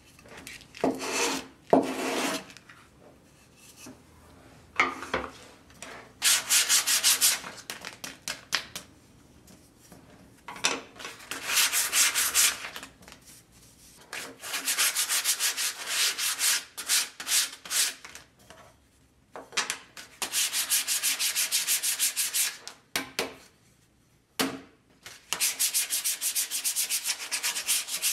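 Hand sanding with a sheet of sandpaper on black-stained solid-wood lamp parts: quick back-and-forth rubbing strokes in several spells of two to four seconds, with short pauses between.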